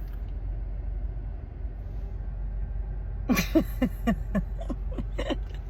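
A tiny Chihuahua whining in a quick run of short, high, arching cries, starting about three seconds in, over the low steady hum of an idling car.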